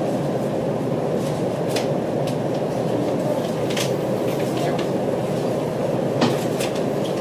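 Steady hum inside a stationary passenger train car, with a few faint clicks and one sharper click about six seconds in.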